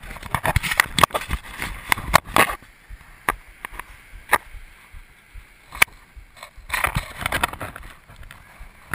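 Water splashing and sloshing right against the microphone, with irregular knocks and crackles coming in clusters.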